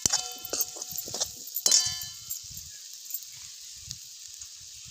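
A steel ladle clinks against a steel kadhai, ringing a few times while stirring eggplant and onion sabzi, with the loudest clink just under two seconds in. After that the vegetables sizzle softly in the oil.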